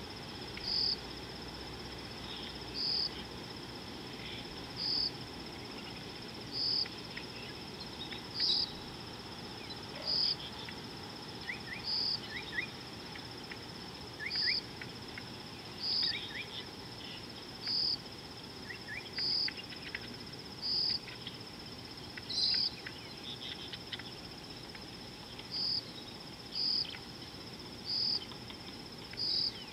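Insects calling: a steady high-pitched trill with a louder short chirp repeating about every one and a half to two seconds, over a low outdoor hiss. Faint scattered bird chirps come in through the middle.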